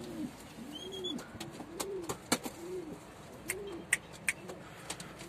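Domestic pigeons cooing: a low coo that rises and falls, repeated about every three-quarters of a second. Several sharp clicks fall in the middle.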